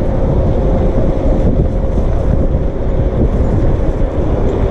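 Strong wind buffeting the microphone of an electric scooter ridden fast downhill, with a steady whine underneath.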